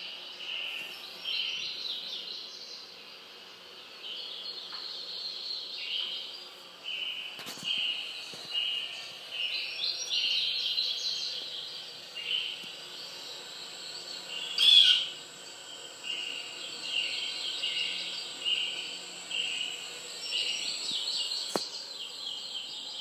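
Bird calls from a wildlife programme playing on a television: repeated short chirps and trills that come and go. A sharp tap sounds about fifteen seconds in, with fainter clicks near 7 and 21 seconds.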